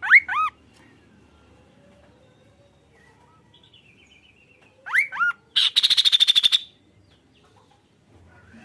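Kaso-kaso songbird singing: a pair of loud, swooping whistled notes, a fainter call, then another pair of swooping notes about five seconds in, followed straight away by a fast, dry rattling trill about a second long.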